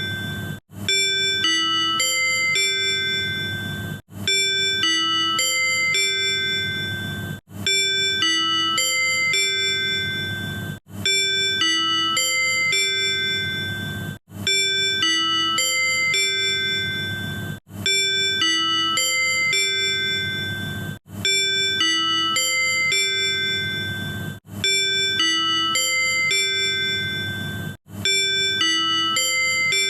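Tobu 100 series Spacia's manual on-board chime: a short melody of several bell-like notes, played over and over. A new repeat starts about every three and a half seconds after a brief gap. This is the chime that comes before a conductor's announcement or an on-board sales announcement.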